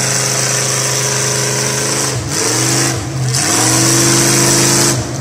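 Lifted square-body pickup truck's engine revving under load in a mud hole: it runs steadily, dips and climbs back twice about two and three seconds in, is held higher for a couple of seconds, then eases off near the end.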